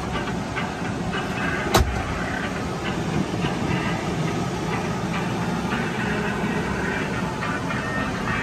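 Cab heater/air-conditioning blower fan running with a steady rush, and one sharp click a little under two seconds in.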